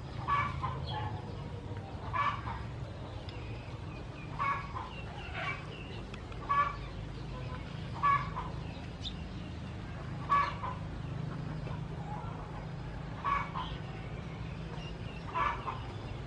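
Chickens clucking, short calls recurring every one to three seconds, over a steady low hum.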